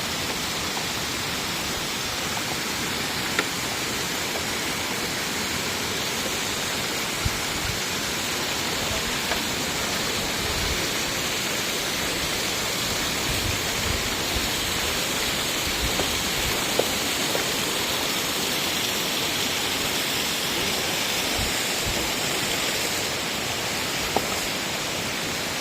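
Steady rush of flowing water from a forest stream, with a few faint knocks here and there.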